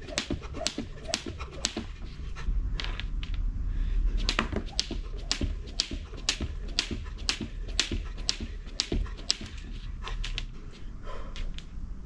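Skipping rope slapping the ground in a steady rhythm of about two strikes a second. A low rumble swells for about two seconds near the start.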